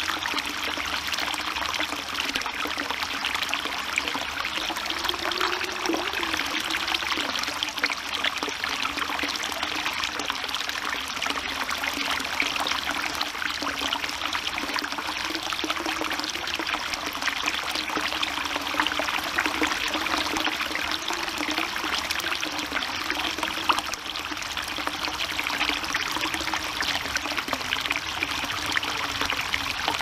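Spring water pouring steadily from a bamboo spout into a stone basin: a continuous splashing trickle with a low, wavering tone under it.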